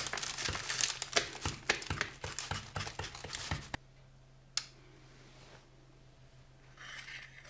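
A knife cutting through the crisp thin crust of a baked Flammkuchen on baking paper: a rapid run of crackling and crunching that stops abruptly about four seconds in. After it, a single click and a brief faint rustle near the end.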